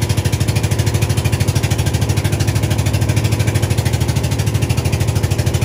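A boat's engine running steadily, a low drone with a fast, even putter.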